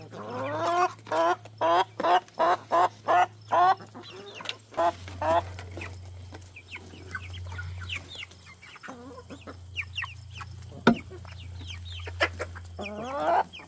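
Chickens calling: a fast run of about eight rising calls in the first four seconds, then scattered softer clucks from the flock. A single sharp click comes about eleven seconds in, and another rising call near the end.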